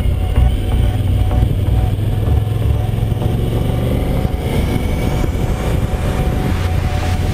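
Suzuki V-Strom 1000's V-twin engine running under way, with a steady rough wind rumble on the bike-mounted microphone.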